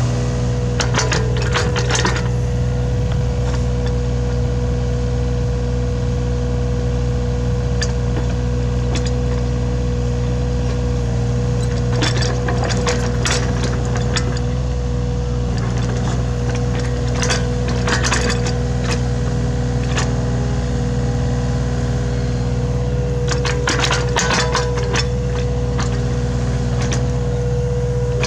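Hitachi Zaxis 33U mini excavator's diesel engine running steadily with a constant hum, while the bucket digs into the ground with cracking and scraping clicks in several clusters: about a second in, twice around the middle, and near the end.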